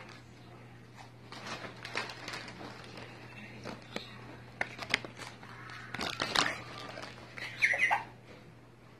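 A bag of Hot Fries crinkling and rustling as it is handled, in irregular crackles that grow louder in the second half.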